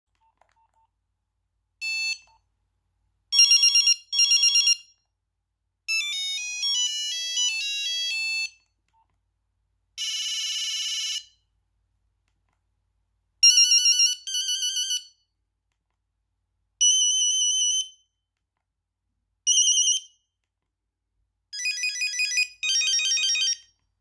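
Nokia 2275 preloaded ringtones previewing one after another as the ringing-tone list is scrolled: a series of short electronic beeping tunes and tone patterns, each lasting about half a second to two and a half seconds, with short silences between them.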